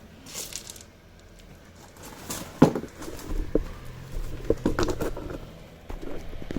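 A screwdriver prying at a plastic fastener in an inner wheel-arch liner, with scattered clicks, scrapes and knocks as it works the fastener loose; the sharpest click comes about two and a half seconds in.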